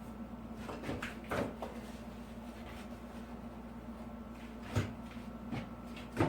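A few short knocks and scrapes from hands working texture compound into a wall seam: a cluster about a second in, then single ones near the end, the last the loudest. A steady low hum runs underneath.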